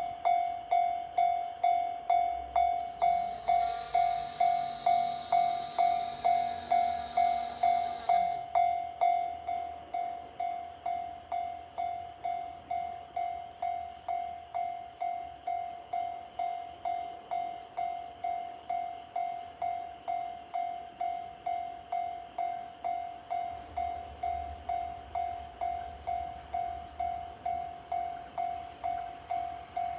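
Japanese railway level-crossing warning bell ringing, a single pitched ding repeated steadily a little under twice a second. A few seconds in, a train horn sounds, held for about five seconds, and a low rumble comes in near the end.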